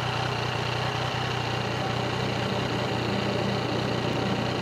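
Yamaha Tracer motorcycle engine idling steadily.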